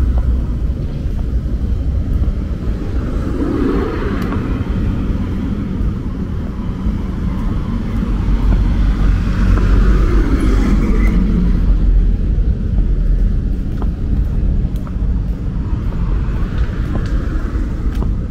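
City road traffic: a steady low rumble of passing cars, swelling as vehicles go by about four and ten seconds in.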